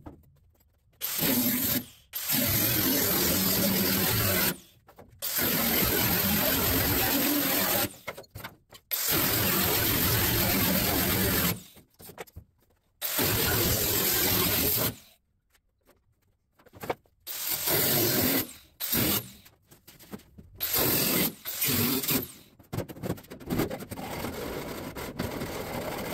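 A handheld power tool cutting into the sheet steel of an old truck's cab pillar in about seven short bursts of one to three seconds each, with pauses between. Quieter, irregular metal handling follows near the end.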